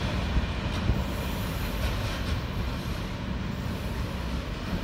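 Container freight train wagons rolling away over the rails, a steady low rumble that slowly fades.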